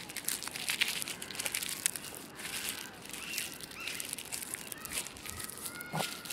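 A dry fallen leaf crinkled and crushed between the fingers close to the microphone: a dense, irregular run of crisp crackles.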